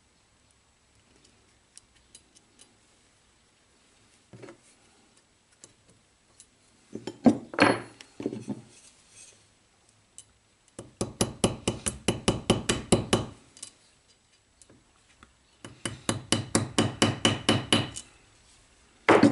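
Small hammer tapping a small steel part held on a nut against a steel anvil block: a few scattered clicks and knocks, then two quick runs of light, even metal-on-metal blows at about five a second, and one last knock near the end.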